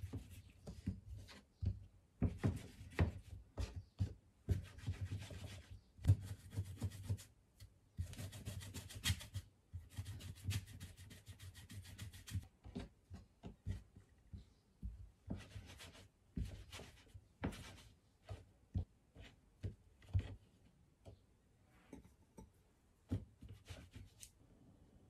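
Palms rolling soft rice-cake dough into long ropes on a wooden cutting board: a dry rubbing broken by light knocks of the hands on the wood. It is busiest in the first half and sparser later.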